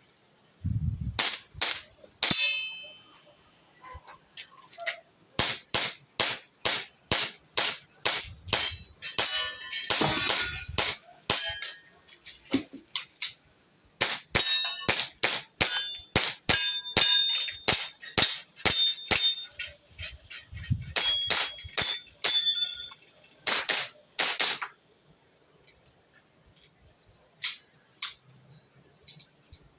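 WE T-Rex gas blowback airsoft pistol firing string after string of quick shots, many followed by the clang of a BB striking a metal target, which rings briefly. The shooting stops a few seconds before the end, leaving only a couple of faint clicks.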